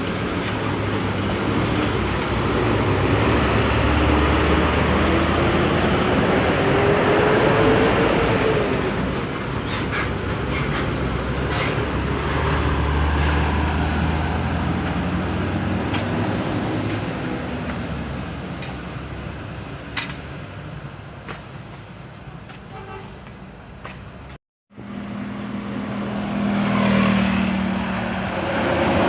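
Large bus engines on the road. One runs and accelerates, its pitch rising over several seconds, then fades. After a brief dropout a second bus engine comes in loud.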